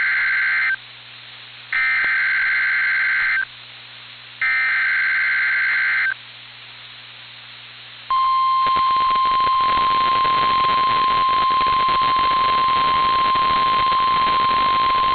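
NOAA Weather Radio Emergency Alert System broadcast: three bursts of the screeching SAME data header, about a second each with short pauses between, the first already under way. After about two seconds of hiss, the steady 1050 Hz weather-radio warning tone comes on about 8 s in and holds over radio static.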